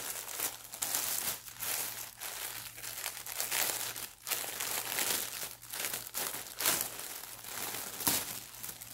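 Crinkly packaging rustling and crackling in quick, irregular bursts as a mail-order package is opened and its contents pulled out.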